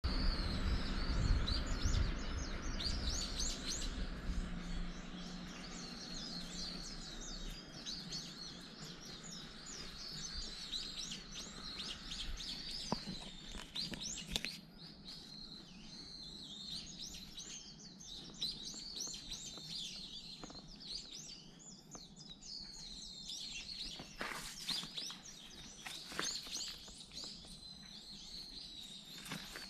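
Many small birds chirping, with short, quick calls overlapping continuously. A low rumble sits under them for the first several seconds and then fades away.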